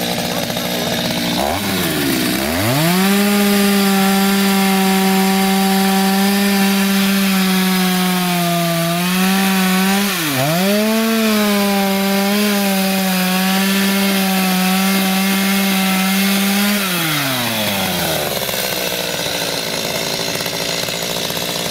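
Gasoline chainsaw revved from idle to full throttle about two seconds in and held there while cutting the tops off wooden piles. Its pitch sags under load and dips sharply once about ten seconds in before recovering. Near the end it drops back to idle.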